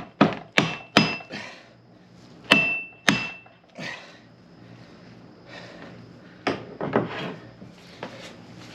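Heavy hammer blows driving a tight axle shaft into a rear axle housing, struck through a rag: three quick strikes about half a second apart, two more a couple of seconds in with a short metallic ring, then lighter knocks near the end.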